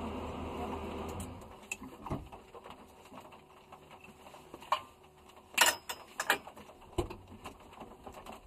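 Rally car's engine running at a standstill, heard inside the stripped cabin, then shut off about a second in. After that the cabin is quiet except for scattered clicks and knocks, the sharpest a pair a little past the middle.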